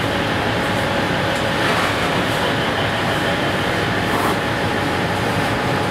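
Steady rush of a commercial kitchen's ventilation and extraction fans, with a faint steady hum and a few light clicks.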